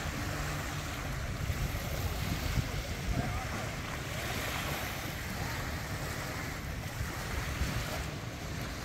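Wind blowing across the microphone: a steady rushing hiss with low, rumbling buffets.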